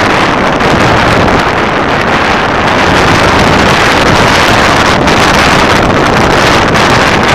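Steady, loud wind rushing over the microphone of a camera mounted on a moving motorbike, with the bike's engine running underneath.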